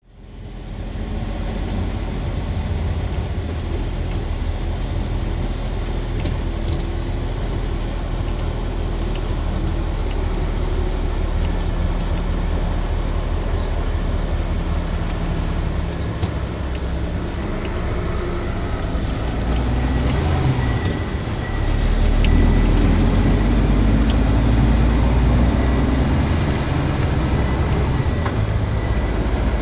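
Heavy diesel engine running steadily with a low rumble, growing louder about two-thirds of the way through as a container reach stacker drives closer.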